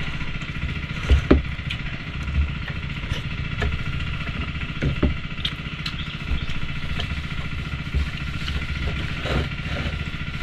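A small engine running steadily with a fast, even chugging pulse. A few sharp clicks and knocks sound over it.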